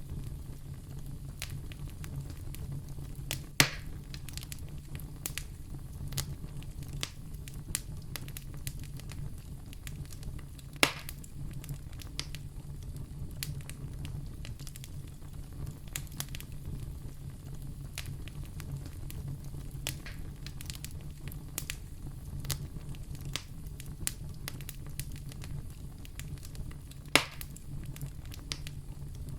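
Fire crackling in a fireplace: a steady run of small crackles over a low rumble, with three loud, sharp pops, about three and a half seconds in, near eleven seconds, and near the end.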